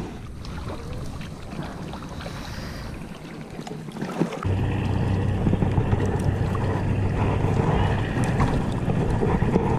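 Wind and handling noise on the microphone, then from about four and a half seconds a boat engine running with a steady low hum.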